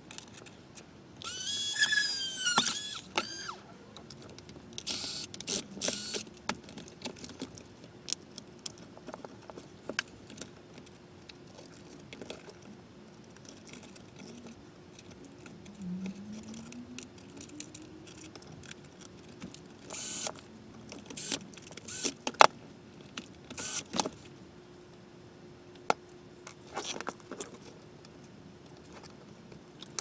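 Hands fitting CPU water-cooler parts onto a plastic housing: scattered clicks, taps and small rattles. A squeaky plastic creak comes about a second in.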